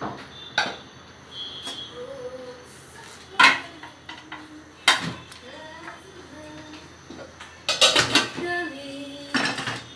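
A stainless steel steamer pot and its lid clanking as they are handled while steamed chicken pieces are tipped from the pot onto a plate. A few sharp metal knocks come spread out, with a quick run of clatter about eight seconds in.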